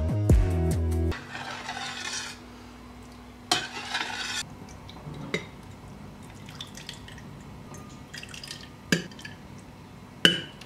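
Chicken soup ladled into a glass bowl: the broth pours in with two short splashing trickles, and the metal ladle clinks against the glass a few times. The tail of background music ends about a second in.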